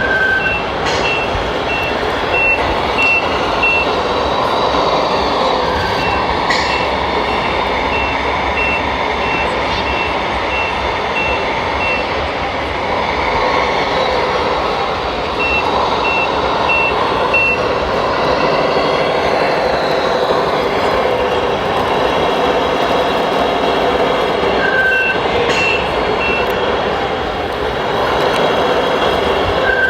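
Reversing beeper of an RC model truck's sound module, beeping at about two a second in several runs with pauses between them, over a steady noisy background. A short, lower tone sounds a few times.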